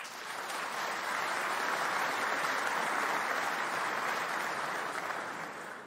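Seated assembly members applauding together. The clapping swells in quickly, holds steady, then dies away near the end.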